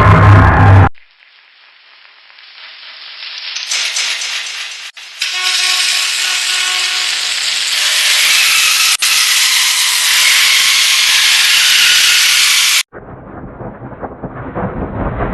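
Effect-processed sports car horn sound effect: a loud steam-like hiss with faint steady tones inside it, fading in over about four seconds and growing brighter in steps. It holds, with a brief dropout near the middle, then cuts off suddenly into a rougher, lower, pitched sound near the end.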